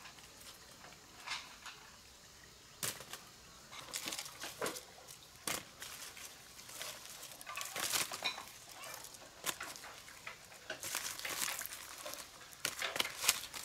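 Chickens moving about, with irregular rustles, scratches and flapping and a few light knocks.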